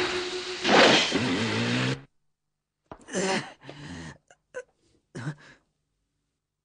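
A loud rushing noise with a held tone that cuts off suddenly about two seconds in, then a few short gasps and groans from a person.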